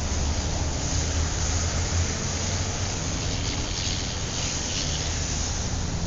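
City street traffic ambience: a steady low rumble of engines and road noise. A hiss swells briefly a little past the middle.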